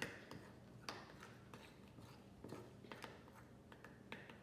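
A spoon stirring Elmer's glue in a bowl, with faint, irregular clicks and taps of the spoon against the bowl.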